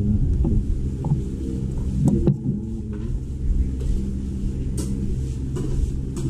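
A motor running steadily with a low hum, with a few light clicks over it.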